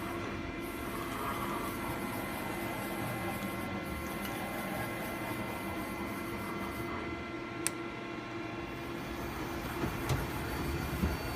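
Mazak QT25L CNC lathe running with a steady mechanical hum and whine made of several steady tones. A sharp click comes about two-thirds through, and a few dull knocks near the end.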